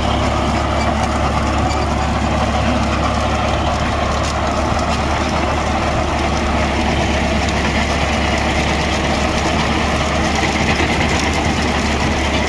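Tractor diesel engine running at a steady speed, a constant low hum without changes in pitch.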